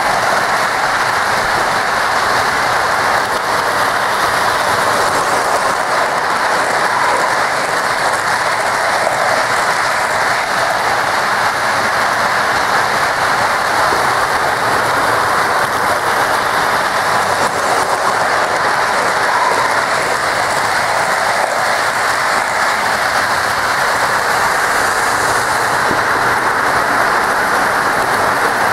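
Lionel O-gauge electric model trains running on three-rail metal track: a steady rolling clatter of metal wheels on the rails.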